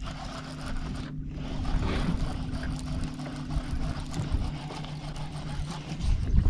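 Bow-mounted electric trolling motor on a bass boat humming steadily at a constant pitch, over a low rumble of wind and water.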